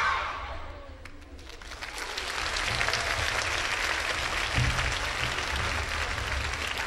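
Hall audience applauding. The clapping builds about a second and a half in, just after a children's group shout cuts off, and then holds steady.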